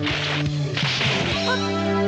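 Background music with held tones, over the swishes and hits of a staged fistfight's sound effects.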